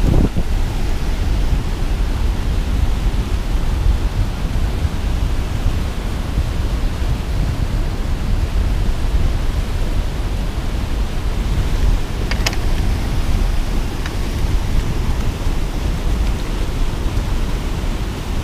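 Steady rush of fast, churning, foaming water, with wind buffeting the microphone. One brief sharp click about two-thirds of the way through.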